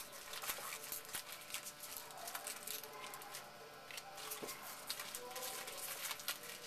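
Trading cards being handled and flipped through by hand: light, irregular clicks and rustles, with faint voices in the background.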